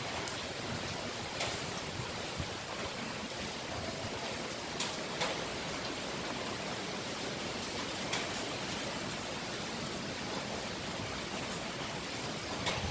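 Typhoon-force wind blowing in a steady, rushing roar with no let-up. A few sharp ticks sound through it, spaced a few seconds apart.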